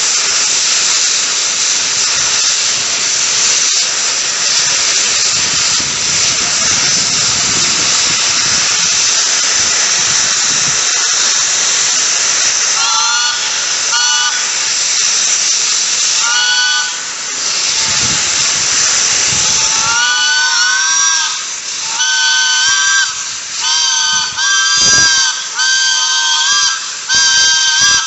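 Four-chime steam whistle on a steam manifold: for about twelve seconds only a loud hiss of steam, then the chime chord sounds in short toots from about 13 seconds in and in a run of about six blasts of a second or so each from about 20 seconds in, each blast sliding up slightly in pitch as it opens. The long hiss at the start fits the usual slow first opening of the valve to clear water from the manifold and warm the whistle before full blasts.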